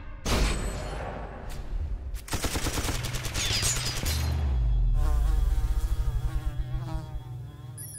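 Machine gun firing: a shot about half a second in, another at about a second and a half, then a rapid run of shots for nearly two seconds. Then flies buzzing with a wavering pitch over a low steady hum.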